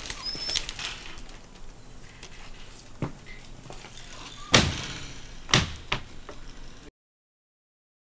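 A few sharp thumps or knocks over light outdoor ambience, the loudest about halfway through, with short high chirps near the start. Near the end the sound cuts off suddenly to silence.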